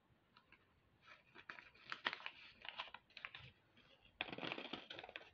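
Small clear plastic zip-lock bag crinkling and rustling in the hands: faint scattered crackles from about a second in, with a denser stretch of rustling about four seconds in.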